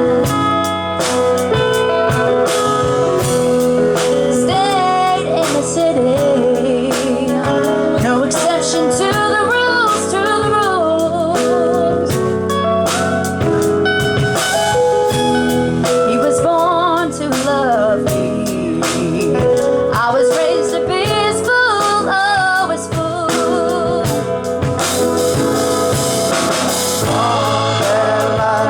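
Live soul band playing: a singer with heavy vibrato over drum kit and guitar, with no break.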